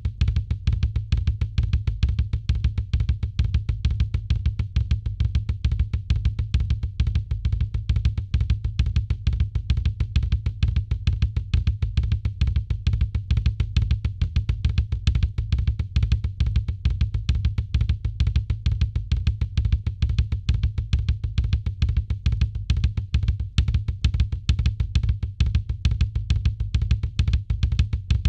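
Drum kit played in a fast, unbroken ostinato of the Herta rudiment, with many strokes a second and the bass drum loudest.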